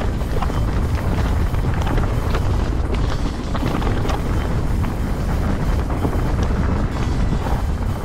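Wind buffeting the microphone during a fast mountain-bike descent, over the rattle of the bike and tyres on a rough, rocky trail: a steady rumble full of small clicks and knocks.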